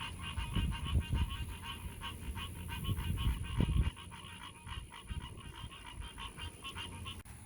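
A chorus of frogs calling in rapid, repeated pulsing notes. Low rumbling noise underlies the first half and stops about four seconds in.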